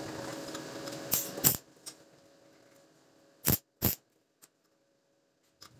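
Stick welding on steel: sharp metallic clicks about a second and a half in, then two quick snaps close together about three and a half seconds in, as the electrode strikes brief arcs to tack galvanized steel wire onto a square steel tube.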